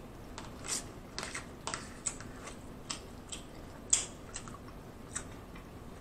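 Close-miked eating of baked mostaccioli pasta: irregular sharp mouth clicks from chewing, with a metal fork tapping and scraping a plastic takeout tray. The loudest click comes about four seconds in.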